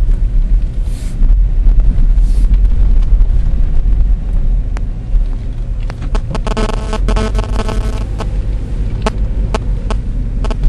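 Steady low rumble of a car driving, with road and engine noise. From about six seconds in, a pitched buzzing sound with clicks joins for a few seconds.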